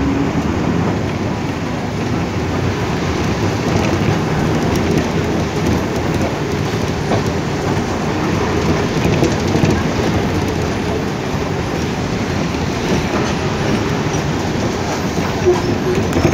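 Steady rumble and rattle of a moving vehicle heard from inside, with rain on the windows.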